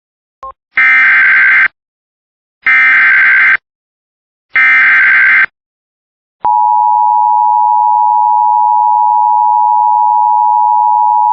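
Emergency Alert System SAME header: three loud bursts of warbling digital data tones, each about a second long and a second apart, with a brief beep just before the first. About six and a half seconds in, the NOAA Weather Radio warning alarm tone starts, a single steady 1050 Hz tone that holds on.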